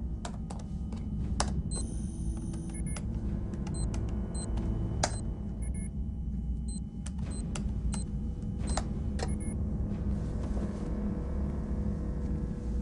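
Laptop keys clicking irregularly and short, high electronic beeps from an Apple PowerBook being operated, over a steady low rumble. The clicks and beeps stop about ten seconds in, and the rumble carries on.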